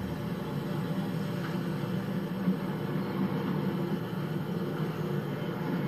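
GE B23-7 diesel locomotive running with a steady low engine drone, heard from a TV speaker.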